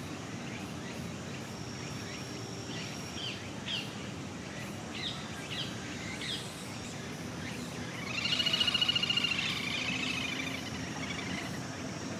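Steady outdoor background noise with scattered short bird chirps, then a louder trilled call lasting about two seconds, starting about eight seconds in.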